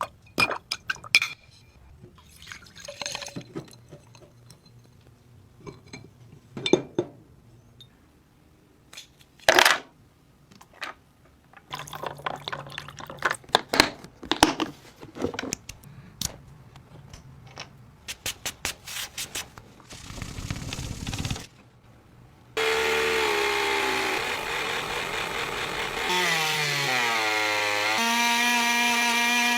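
Irregular clicks and knocks of tools being handled on the workpiece, then, about two-thirds of the way through, a small electric power tool starts and runs loudly, its pitch dropping and then holding steady.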